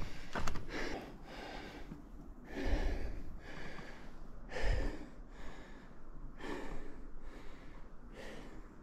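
A hiker breathing hard while trudging through deep snow, heavy in-and-out breaths about once a second. Two dull footfalls thud a little under three and five seconds in.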